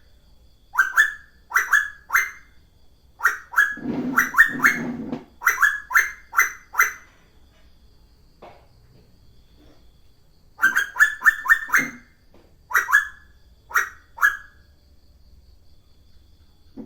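Asian koel calling in quick bursts of short, sharp rising notes, four to eight at a time, with pauses of a few seconds between bursts. A low sound runs under the calls about four to five seconds in.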